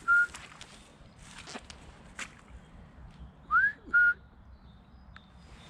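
A person whistling a two-note call to cattle, a short rising note followed by a level one. The level note sounds right at the start, and the full pair comes again about three and a half seconds in.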